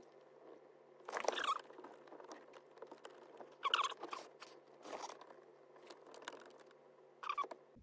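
Plastic dashboard trim creaking and crackling as it is pried and pulled against its retaining clips by hand, in several short creaks, the loudest about a second in and near four seconds in.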